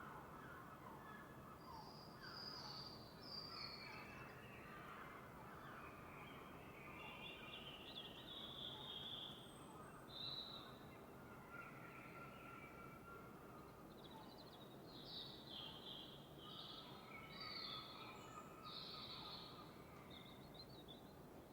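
Faint dawn chorus: several birds singing overlapping chirps and short trills over a quiet, steady outdoor hiss.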